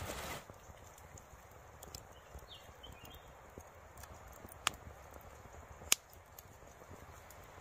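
Small fire of bark and wood burning on a pot lid, crackling faintly with a few sharp pops; two louder pops come in the second half, a little over a second apart.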